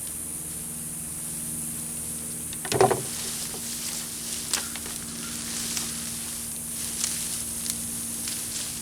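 Crackling rustle of dry mulch as potato plants are pulled up and the mulch is pushed aside, loudest once about three seconds in, then a few smaller crackles and snaps. A steady low hum runs underneath.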